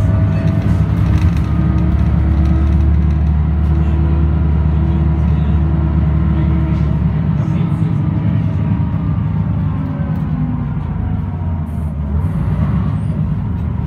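Mercedes-Benz O405 bus's diesel engine heard from inside the cabin, running steadily under way with a heavy low drone. About seven seconds in the deepest drone eases off, and the engine note then rises and falls gently.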